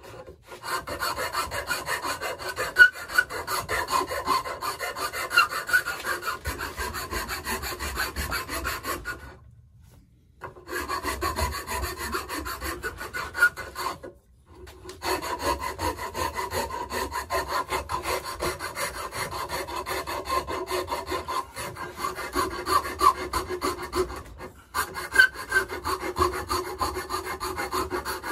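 Hand wood rasp filing the end of a square wooden stick clamped in a vise, in quick back-and-forth strokes, rounding it into a peg. The filing stops briefly about nine seconds in and again about fourteen seconds in.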